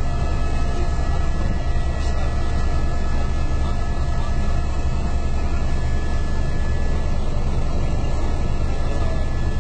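Helicopter cabin noise in flight: a steady drone from the rotor and engine, heavy in the low end, with a faint steady whine above it.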